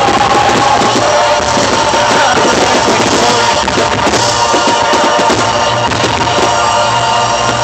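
Loud rock-style music with singing and drums, playing steadily.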